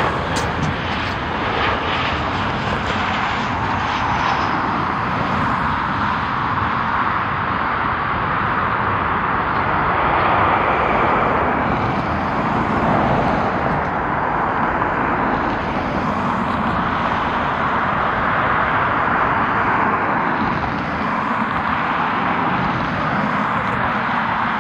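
Airliner engines running, heard as a continuous rushing noise that holds steady without a clear rise or fall.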